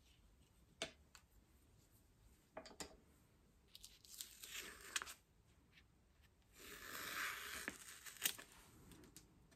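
Paper scraping and rustling in two stretches of a second or two, with a few light taps between them and one sharper knock near the end.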